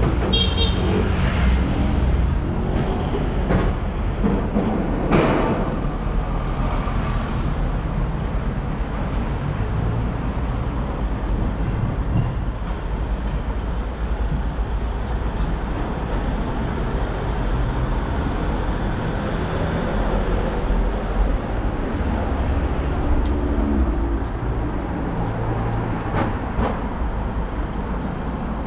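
Urban street ambience: a steady rumble of road traffic passing close by, with one louder vehicle going past about five seconds in.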